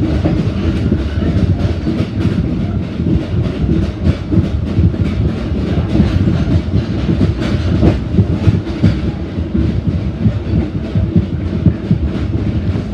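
Reunification Express passenger train (SE7) running along the metre-gauge North–South line, heard from on board: a loud, steady rumble with a dense, rapid clatter of wheels on the rails.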